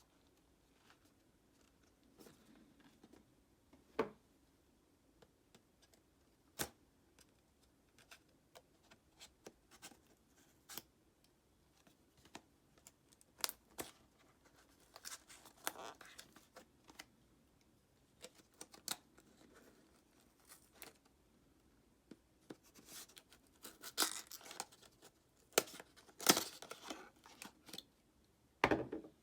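Product packaging being handled and opened: scattered clicks and taps with bursts of rustling and tearing, busiest and loudest in the last several seconds.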